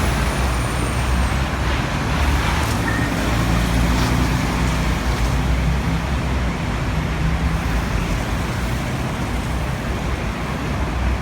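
Steady road traffic: vehicle engines running with a low hum under a wash of road noise.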